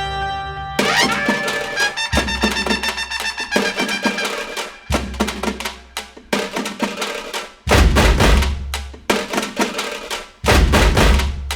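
Background music with heavy drum hits and deep bass, pausing and restarting several times.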